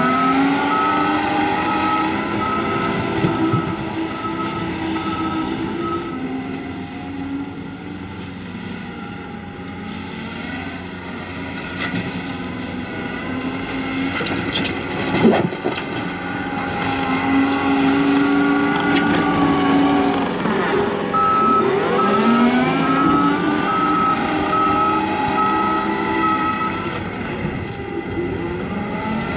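John Deere 335P skid steer's diesel engine working, its pitch rising and falling as it is revved under load, with a reverse alarm beeping steadily for several seconds at the start and again past the middle.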